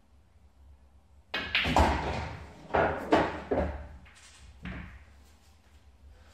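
English pool shot: the cue tip strikes the cue ball, balls click together and the red drops into a pocket, then knocks and rattles several more times over the next three seconds as it rolls away inside the table.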